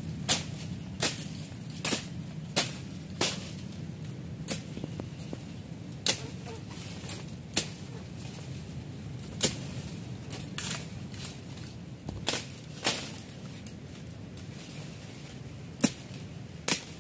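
Irregular sharp snaps and swishes, roughly one a second, as stiff sea pandan leaves and stems are pushed aside and broken by hand, over a steady low rumble.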